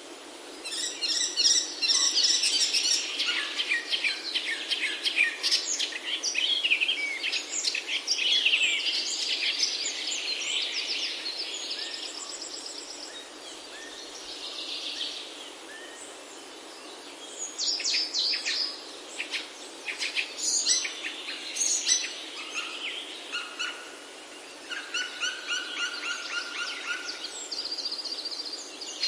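Several birds singing and calling at once, with overlapping chirps and rapid trills over a steady background hiss; a quieter lull comes midway.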